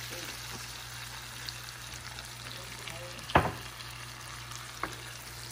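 Shrimp and spinach, with Alfredo sauce going in, sizzling steadily in a frying pan. A sharp knock sounds a little over three seconds in, and a lighter click near the end.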